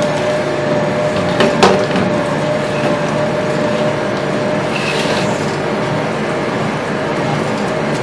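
Charcoal extrusion press running steadily as it pushes charcoal sticks out of its die, a continuous mechanical noise with a constant tone through it. A couple of sharp knocks sound about a second and a half in.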